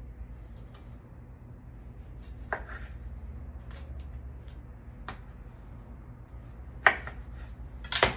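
A few sharp clicks and knocks of kitchen utensils and dishes on a countertop, scattered a second or so apart, the loudest near the end.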